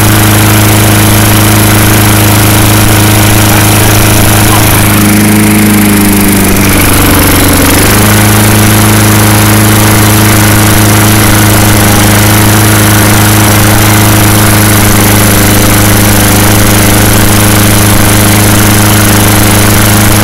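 Tecumseh 3.75 hp engine on an MTD Lawn Chief push mower running at a steady speed; about six seconds in it sags, its pitch dropping for a second or two, then picks back up. The owner puts the unsteady running down to dirt in the fuel line and carburetor.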